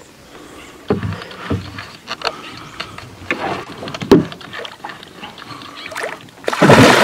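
Hooked peacock bass splashing and thrashing at the water's surface beside the boat, with a few sharp knocks along the way and a loud splash near the end.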